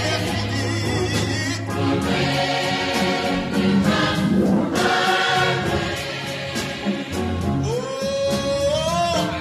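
Live gospel choir singing with instrumental accompaniment and a steady beat. Near the end a lead voice slides up in pitch.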